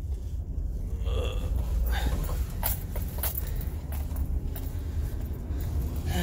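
GMC Savana van's engine and road rumble heard inside the cabin as the van rolls slowly, a steady low drone with a few short clicks and creaks.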